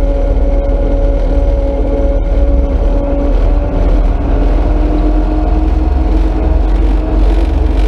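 Front-end loader's Yuchai diesel engine running steadily under load while driving, heard from inside the cab: a low rumble with a steady hum that rises slightly in pitch about four seconds in. The engine has just had its injection pump refitted after an oil leak at the pump's overrunning clutch.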